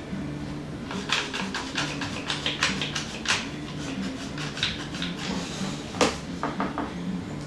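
Blue one-handed bar clamps being ratcheted tight with quick trigger squeezes, clamping a horn bow's limb down onto a wooden form: a rapid run of clicks for a couple of seconds, then a few scattered clicks near the end.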